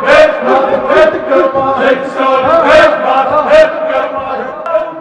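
Male voices chanting Arabic verse in a steady rhythm, with sharp 's' sounds recurring every half second or so.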